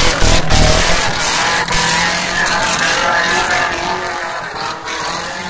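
Modified off-road 4x4's engine revving hard as it churns through mud close by, loudest in the first second with a heavy low rumble, then fading as the vehicle pulls away.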